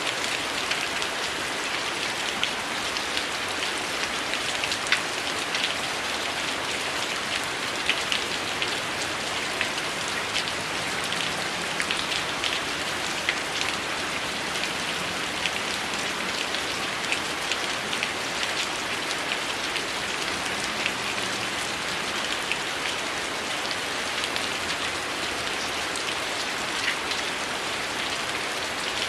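Heavy rain falling steadily, an even hiss with many sharp ticks and pops scattered through it.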